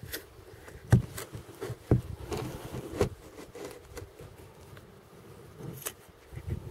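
A few sharp knocks and thumps from the camera being handled and repositioned, the loudest about one and two seconds in.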